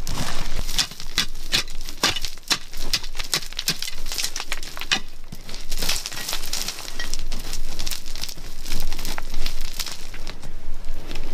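Hands scraping and scooping loose, gritty red soil: a quick run of crunching scrapes that thins out after about five seconds.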